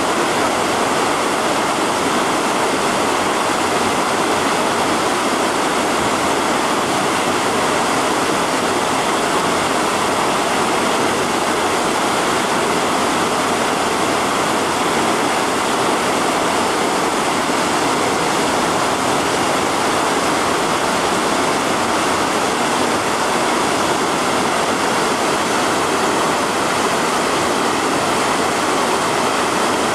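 Steady rushing of water flowing along a narrow canal.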